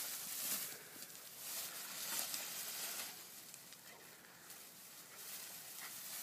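Golden retriever puppy pushing through a low leafy hedge, its leaves and twigs rustling in irregular surges.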